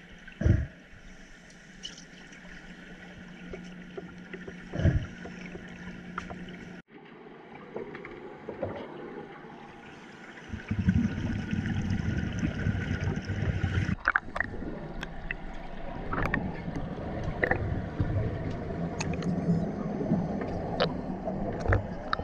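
Underwater pool ambience as picked up by a camera below the surface: a muffled rushing with a steady low hum and two dull thuds in the first five seconds, then a louder low rumble with scattered clicks from about ten seconds on.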